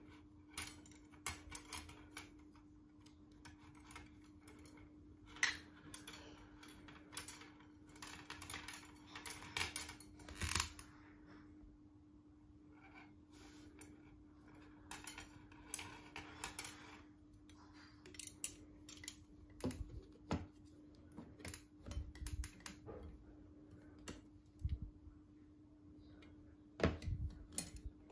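Thin brass rods and small brass screws clicking and clinking against each other as they are handled and fitted together, in irregular clusters of light taps with some rustling. A faint steady hum sits underneath.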